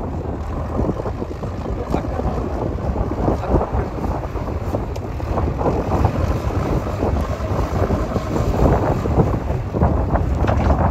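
Diesel engines of earthmoving machinery running, with wind buffeting the microphone.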